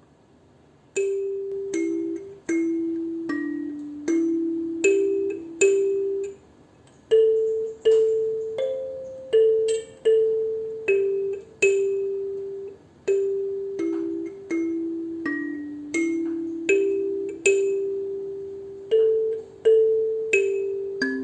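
A 17-key Winly kalimba being plucked, playing a slow tune of single notes and occasional two-note pairs in its middle range. Each metal tine rings and fades. The playing starts about a second in.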